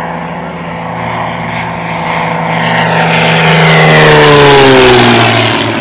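Single-engine propeller aerobatic plane making a low fly-by. Its engine grows louder to a peak about four and a half seconds in, and its pitch drops as it passes.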